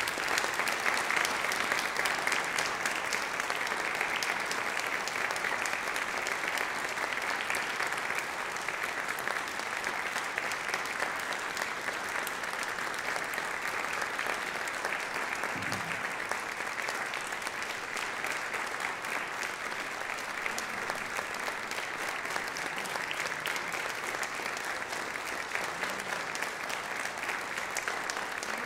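Audience applauding: many hands clapping in a dense, steady ovation that eases only slightly.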